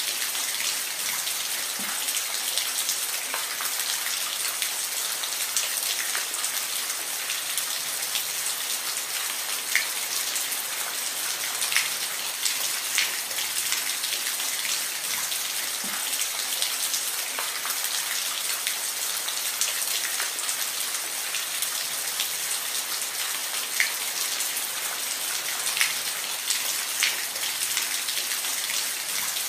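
Steady rain falling, an even hiss with scattered louder individual drops landing close by.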